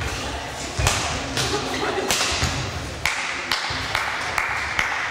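Badminton rally: crisp racket strikes on the shuttlecock about once a second, with shoes squeaking on the court floor and footfalls in a large sports hall.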